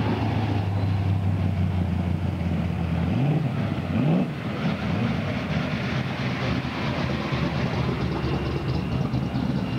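Modified car engines running at low revs, then revved sharply twice, about three and four seconds in, before settling back to a steady rumble.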